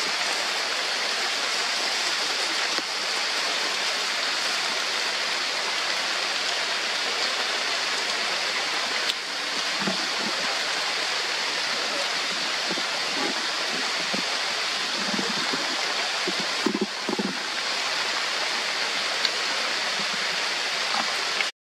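Heavy rain falling steadily on rainforest foliage, a constant even hiss.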